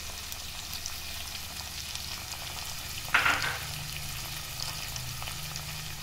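Diced onions, beans, carrots and peas frying in a pot on a gas stove: a steady sizzle with fine crackles, and a brief louder noise about three seconds in.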